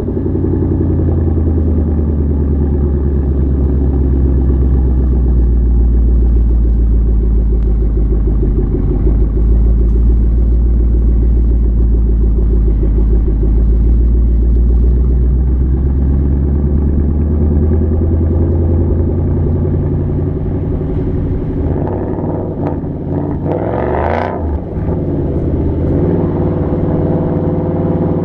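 2014 Mustang GT's 5.0 V8 idling steadily through Roush axle-back mufflers with the resonators deleted. A short rev rises and falls about four fifths of the way in.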